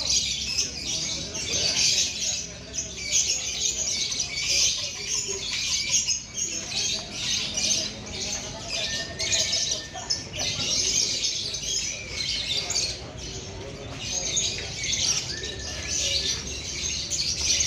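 Lovebirds singing in a high, rapid, nearly unbroken chatter, the long trilling song that contest lovebirds are judged on.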